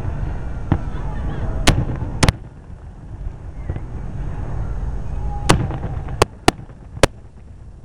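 Aerial fireworks shells bursting: a string of sharp bangs, about eight in all, with a quick pair a little over two seconds in and a cluster of four in the last two and a half seconds, over a low rumble that drops away about two seconds in.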